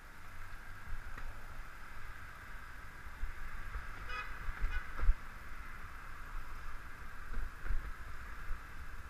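Bicycle ride heard from a bike-mounted camera: steady wind rumble on the microphone and rolling road noise. A short horn toot comes about four seconds in, and a sharp knock follows just after five seconds.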